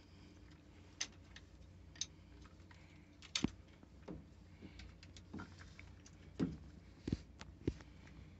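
Irregular metallic clicks and taps of a wrench being worked on a rusty terminal nut of a glow plug solenoid. Scattered single clicks, about one a second, are loudest in the second half.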